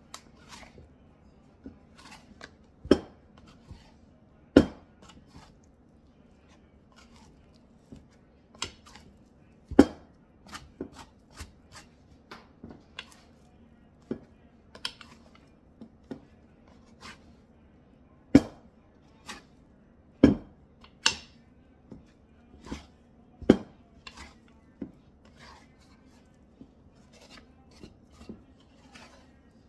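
Irregular sharp knocks and scrapes of a plastic bowl scraper against a ceramic mixing bowl as sourdough dough is worked by hand, a few of them much louder than the rest.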